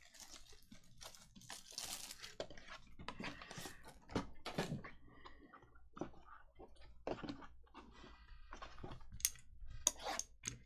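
Trading cards and their packaging being handled: an irregular run of small crinkles, ticks and scrapes.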